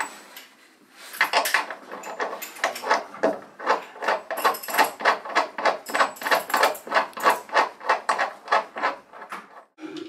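Rapid, regular scraping strokes on wood, about four a second, starting about a second in and stopping near the end.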